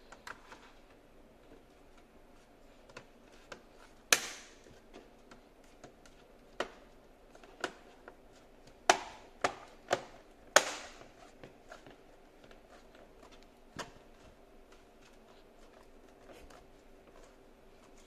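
Plastic bottom cover of an Acer Aspire 3 laptop being pressed back onto the chassis, its clips snapping into place in a series of sharp, unevenly spaced clicks, the loudest about four seconds in and twice around nine to ten and a half seconds in.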